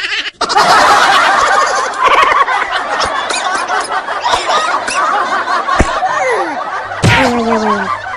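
Several people laughing and snickering over one another, followed near the end by a short falling tone.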